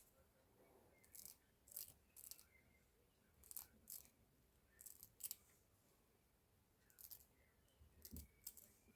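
Scissors snipping hair: a scattering of short, faint snips, several in quick pairs.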